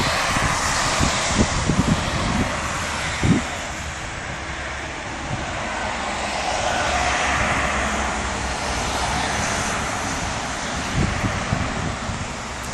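Gusty wind ahead of a thunderstorm, a steady rushing that swells and eases, with irregular low thumps of wind buffeting the microphone.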